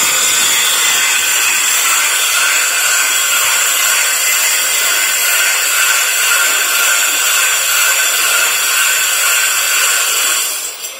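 Angle grinder with a diamond vacuum-brazed cutting disc cutting metal: a steady high-pitched whine over a hiss. It drops away sharply just before the end.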